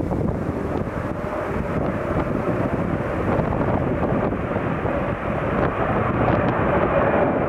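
Tupolev Tu-154 jet airliner rolling along the runway, the steady rush of its three rear-mounted jet engines growing a little louder near the end as it approaches. Wind buffets the microphone.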